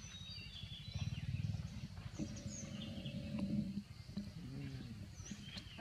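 Outdoor ambience: birds chirping in short high calls over a low steady rumble, with a faint low call about four and a half seconds in.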